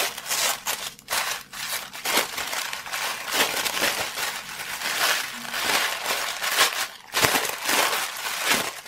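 Green tissue paper crinkling and rustling as hands unwrap and crumple it, an irregular run of crackles throughout.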